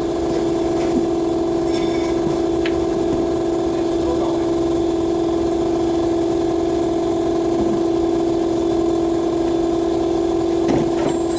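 A steady machine hum at one constant pitch, a motor or engine running at even speed, with a few faint clicks.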